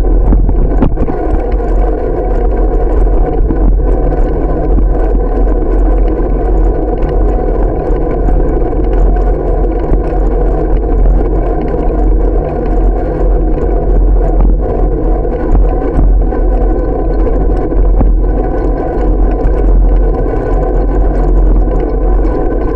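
Steady, loud wind rush and road rumble on a bike-mounted camera's microphone while riding along a street.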